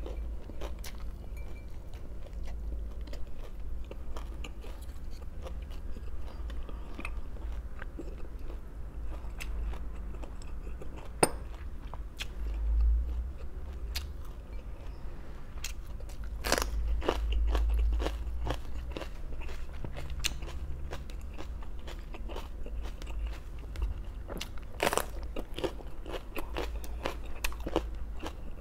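Close-miked eating: crisp crunching bites and chewing of raw vegetables, with a few crunches much louder than the rest, over a steady low hum.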